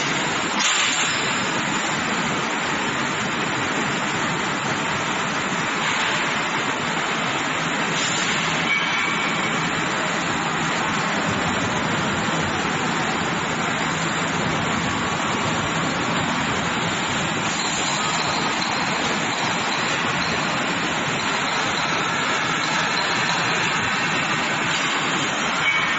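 Steel bar induction quenching and tempering line running: a steady, even machinery noise without pauses.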